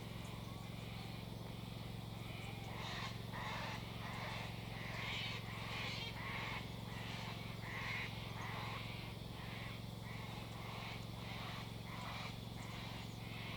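Faint outdoor ambience: a steady low hum under soft, short chirping sounds that repeat irregularly, about one or two a second.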